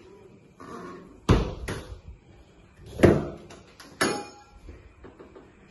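Door of a prefab toilet cubicle being handled: a series of knocks and bangs, strongest about a second and a half in, at about three seconds, and at about four seconds. The last one is followed by a short metallic ring from the door hardware.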